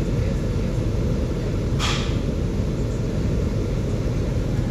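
Steady low rumble in the background, with one brief scratchy noise about two seconds in.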